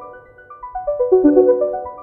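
iPhone ringtone playing: a quick run of short, bell-like notes stepping downward in pitch, the phrase looping about every two seconds.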